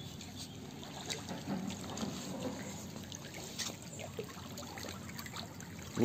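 Faint trickling of a small, fast, clear stream, with small water sounds as a hand lowers a caught trout back into it.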